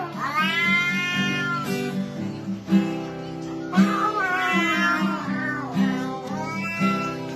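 A cat meowing along to a plucked acoustic guitar: two long meows that rise and fall in pitch, then a shorter one near the end.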